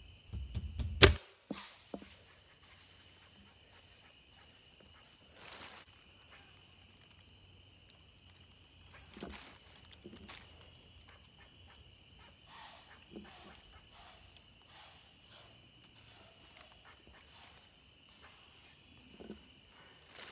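A single sharp crack about a second in, the crossbow firing. After it, steady high-pitched insect chirring with a few faint rustles and clicks.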